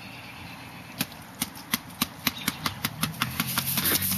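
Aluminium soda can shaken hard by hand, the drink sloshing inside in a run of sharp knocks that start about a second in and quicken steadily, with a low hum building under them near the end.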